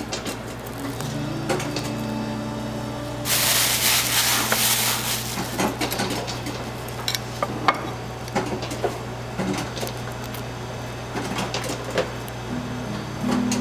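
Light clicks and scrapes of a metal spreader and fork working a croissant on a wire cooling rack, over a steady low hum. About three seconds in, a loud hiss lasts about two seconds.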